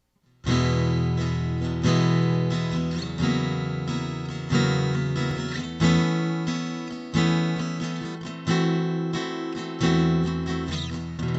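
Acoustic guitar played through a Cuvave Cube Baby acoustic pedal, starting about half a second in: a chord is struck about every 1.3 seconds and left to ring, with picked notes between the chords.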